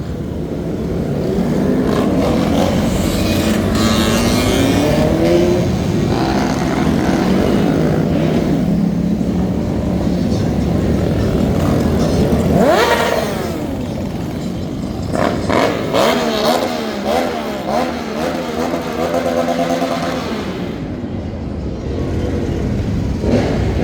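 Motorcycle engines revving and riding past on a city street, their pitch rising and falling again and again. About halfway through, one engine revs up sharply, and near the end quick, wavering throttle blips follow one another.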